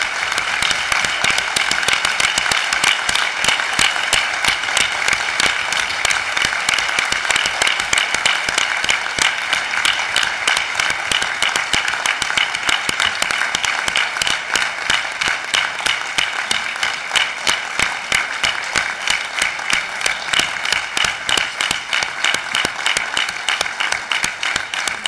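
Crowd applauding at length: dense, steady clapping from many hands.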